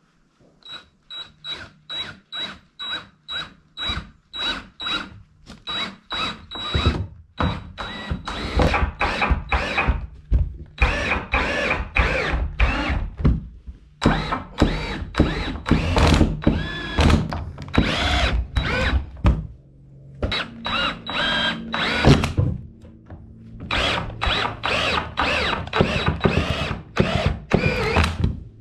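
Cordless drill boring into the end of a wooden board. At first it runs in quick short pulses, about three a second, then in longer runs with the motor speeding up and slowing down, and brief pauses between.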